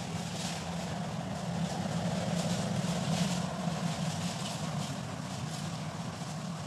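Steady low hum of an engine running, with a faint hiss over it, swelling slightly in the middle.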